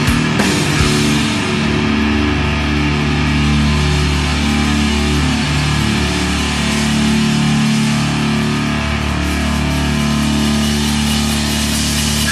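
Heavy, distorted sludge/doom metal music, with low notes held for long stretches and few drum hits after the first second.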